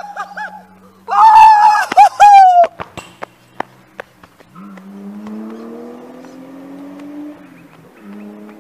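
Loud, high-pitched wordless shouting in two bursts, a player celebrating the winning point of a basketball game, followed by a few sharp knocks of a basketball bouncing on the concrete court. Then a car engine accelerating, its pitch rising slowly, dropping briefly near the end and rising again.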